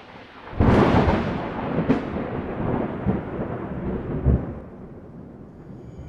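Thunder: a loud crack about half a second in, a second sharp crack near two seconds, then a rumble that fades away.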